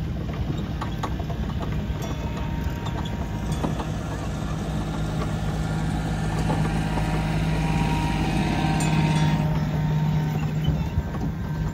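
A vehicle engine running with a steady low hum that grows louder through the middle and eases off near the end.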